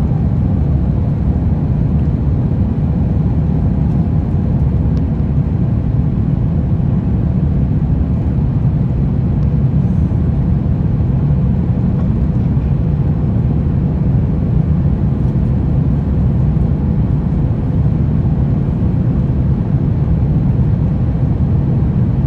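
Airbus A350-900 cabin noise during the climb after takeoff: the steady low roar of its Rolls-Royce Trent XWB engines at climb power and air rushing past the fuselage, heard from a window seat beside the wing.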